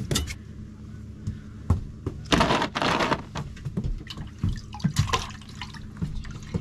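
Water splashing and running, with the loudest rush a little over two seconds in and smaller splashes after it, over the steady low hum of a running motor.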